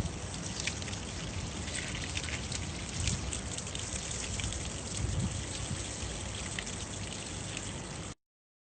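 Water dripping and trickling off a freshly sprayed car's paintwork, a steady patter of small drips that cuts off abruptly near the end.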